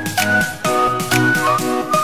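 Background music: an electronic track with a steady beat of about four strikes a second under a high lead melody.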